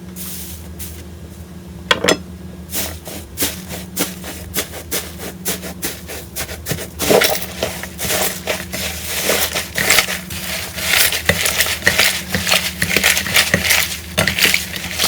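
Slime being squeezed and pressed by hand, with a dense run of crackling and popping clicks that grows busier partway through, over a steady low hum.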